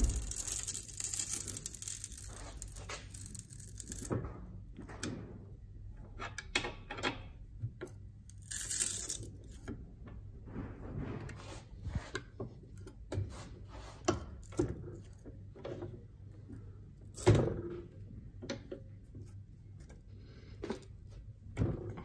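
Hand-operated bench sheet-metal bender being worked on a small test plate: scraping and rustling at first, then scattered clicks and knocks as the plate is clamped, bent and handled, the loudest knock about seventeen seconds in.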